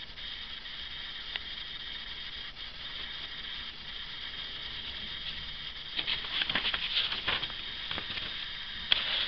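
Paper magazine pages rustling and crackling as they are handled, in a burst of rustling a little past the middle and one sharp crackle near the end, over a steady high hiss.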